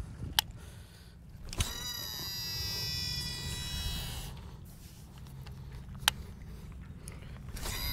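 Baitcasting reel being cast, the Shimano Antares DC: the spool spins out with the reel's electronic DC brake whine. It is a high whine of several tones with a falling note, starting with a click about a second and a half in and fading after about two and a half seconds. A second cast's whine starts near the end, and a couple of single sharp clicks come in between.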